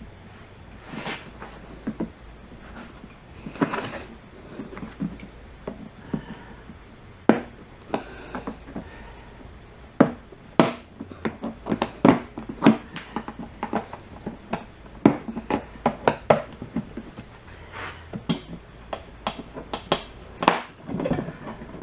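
Irregular clicks, clinks and knocks of hand tools and screws against the Craftsman air compressor's housing as its cover screws are taken out, sparse at first and busier about halfway through.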